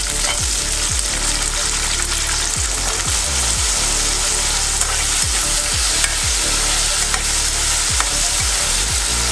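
Halved karonda berries sizzling steadily as they roast in hot oil in a metal kadhai. A perforated metal spatula stirs them against the pan, with faint scrapes and clicks.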